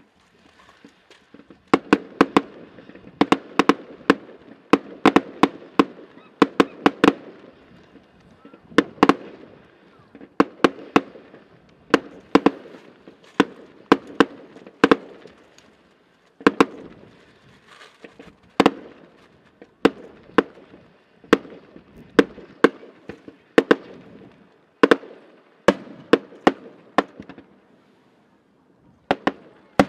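Fireworks display going off: dozens of sharp bangs at irregular intervals, some in quick clusters, with a lower rumbling haze between them. The bangs begin about a second and a half in.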